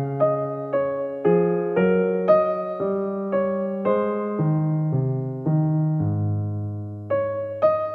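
Background music: a slow piano melody over chords, with notes changing about twice a second and a longer held low chord near the end.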